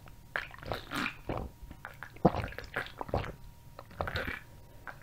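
Close-miked gulping and swallowing from a can of fruit drink: an irregular run of wet gulps and mouth clicks, the sharpest a little past halfway.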